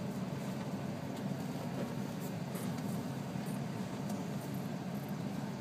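Steady low hum of an idling vehicle heard from inside the cabin, with a few faint clicks about two to four seconds in.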